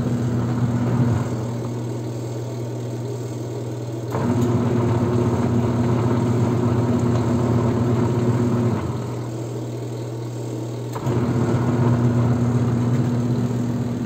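Twin-tub washing machine's wash motor running in its wash cycle: a steady electric hum that swells for runs of about four seconds, with quieter gaps of two to three seconds between as the pulsator stops and reverses. The motor runs again now that a blown fuse has been replaced.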